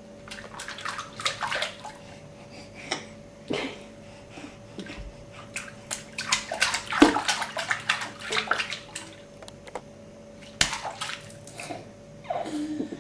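A baby splashing and slapping his hands in bubbly bathwater in a kitchen sink, in several irregular flurries of splashes.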